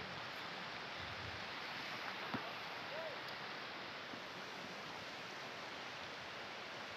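Steady rush of a mountain stream, with a single short knock a little over two seconds in.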